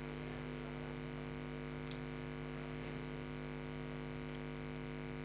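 Steady electrical mains hum, several constant tones with no change, with a few faint ticks.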